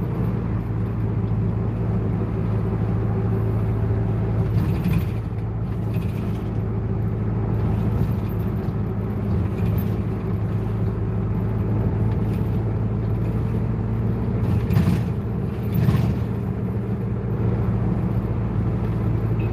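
Steady low drone of a route bus's engine and road noise heard inside the cabin, with a few brief knocks.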